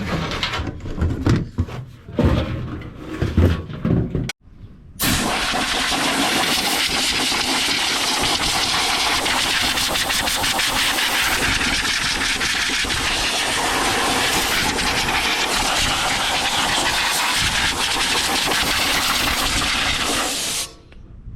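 Knocking and clattering of handled parts for about four seconds, then a loud, steady rush of air from a powered air tool, which runs for about fifteen seconds and cuts off suddenly.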